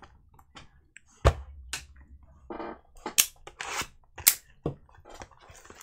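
A trading-card box and its packs being handled on a tabletop: a string of sharp cardboard clicks and snaps with short rustles in between.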